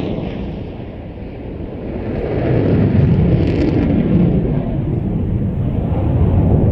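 Jet noise from an F-16's Pratt & Whitney F100 turbofan as the fighter flies its display: a deep rumble that dips about a second in, then swells back and holds steady.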